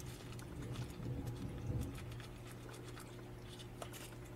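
Faint scattered taps and rustles of a small paper packet of sea-monkey eggs being handled and emptied over a plastic tank, over a steady low hum.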